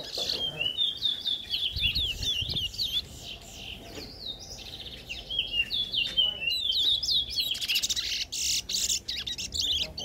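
Caged brown songbird singing a fast twittering song of short, high, sharply falling notes. One bout runs for about the first three seconds and another starts about five seconds in.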